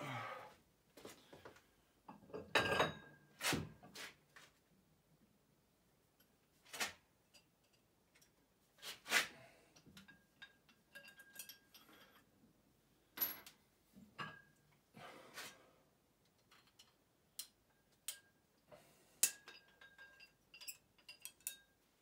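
Irregular metal clinks and knocks, some with a short ring, of dumbbell weight plates being handled while a dumbbell is re-loaded; the loudest clanks come a few seconds in and again about nine seconds in.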